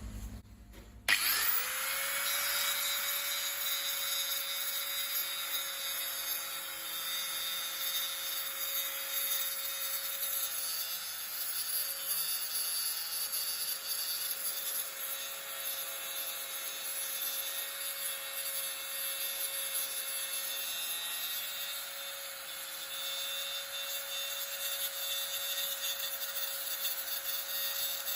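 A handheld power grinder spins up about a second in and runs steadily with a high whine, grinding paint and body filler off the rusty lower wing and door bottom of an Austin Allegro to expose the rot.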